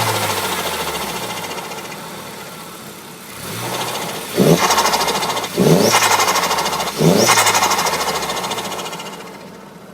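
Turbocharged car engine dying down from a rev, then blipped three times. Each throttle lift is followed by the turbo's fast fluttering chatter from compressor surge, which fades away.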